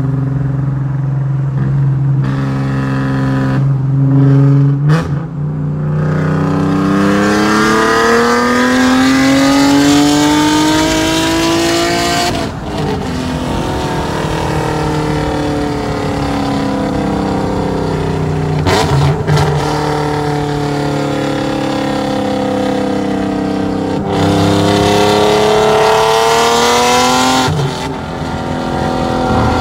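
Infiniti G37S's VQ37VHR V6 on a custom 3-inch straight-pipe exhaust with long-tube headers, heard from inside the cabin during hard acceleration pulls: the exhaust note climbs steadily in pitch through each gear and drops sharply at each gear change, four times.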